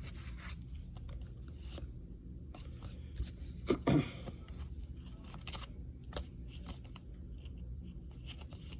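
Baseball trading cards being handled and flipped through: light scattered slides, scrapes and clicks of card stock, with a brief vocal sound near the middle.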